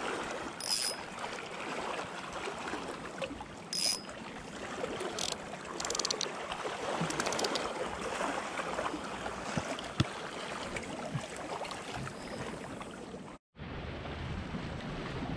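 Small waves lapping and washing against a rocky shoreline, a steady watery rush, with a few faint short clicks in the first half. The sound drops out for a moment near the end.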